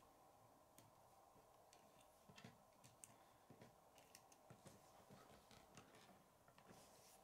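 Faint, irregular clicks and taps of plastic K'nex pieces being handled and pushed onto a rod.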